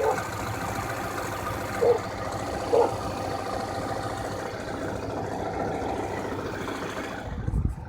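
Acura Integra B18B1 four-cylinder engine idling steadily and roughly, with a rod knock from the bottom end; it sounds like a train or a diesel truck. The knock comes from water in the bearings after a blown head gasket let coolant into the oil.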